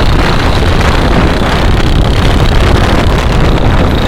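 Motorcycle with a loud aftermarket exhaust running while being ridden, with wind buffeting the microphone.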